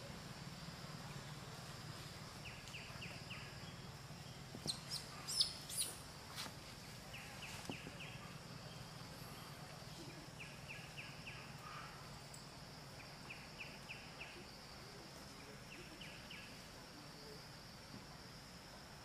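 Outdoor ambience: a steady high insect drone over a low hum, with a bird repeating a quick run of about four short notes every three seconds or so. A few sharp clicks about five seconds in are the loudest sounds.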